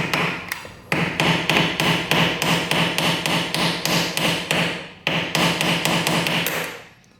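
A hand or power tool working a tight fastener on the engine of a 1985 Yamaha 225DX, making a rapid, even run of clicks, about six a second, in bursts broken by short pauses, then stopping.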